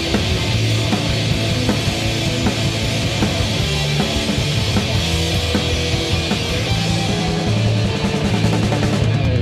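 Loud rock music with a driving drum beat.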